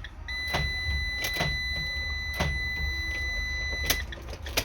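A steady high-pitched warning tone from a 2014 Ram ProMaster's instrument cluster, held for about four seconds and then stopping, with a few scattered clicks. The engine does not crank: the van shows a fuel cutoff activated.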